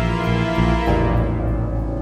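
Dramatic background music: sustained tones that change about a second in, the higher notes dropping away and leaving a lower held chord.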